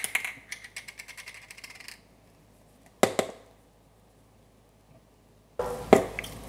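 Small spice shaker of cayenne pepper shaken over fish fillets: a fast run of light rattling clicks for about two seconds, then two sharp knocks about three seconds in. Near the end comes a short clatter as the bottle is handled and set down on the counter.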